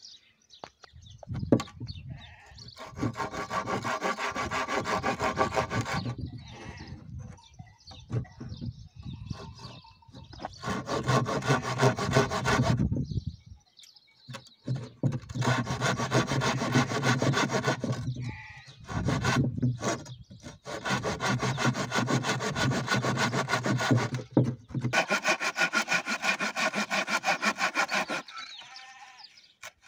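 Hand saw cutting through a wooden batten laid across a concrete block, in about five bouts of quick back-and-forth strokes with short pauses between them.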